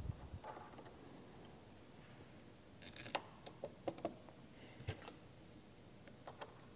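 Small, faint metal clicks and taps as hex screws and an Allen key are handled and set into the body of a hydraulic solenoid valve. The clicks are scattered, mostly about halfway through, with a few more near the end.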